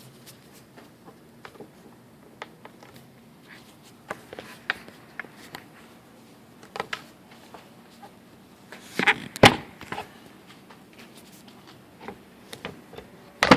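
Scattered plastic clicks and knocks as a Toyota 4Runner tail-light housing is worked loose from its mounting, with a louder clatter about nine seconds in.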